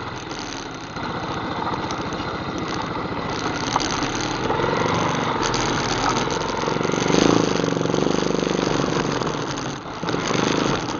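ATV engine running at idle, a steady fast pulsing that swells slightly about halfway through and dips briefly near the end.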